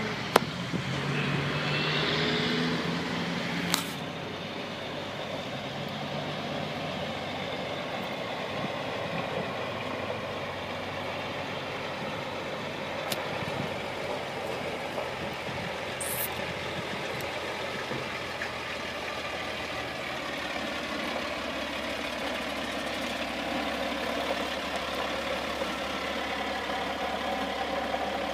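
A heavy tow truck's engine running, louder for the first four seconds with a brief rise in engine pitch, then settling to a steady idle. A sharp click sounds about four seconds in.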